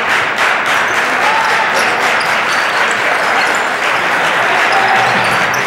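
Crowd noise in a basketball gym: spectators applauding and cheering in a steady wash, with short high squeaks of sneakers on the court here and there, clearest near the end.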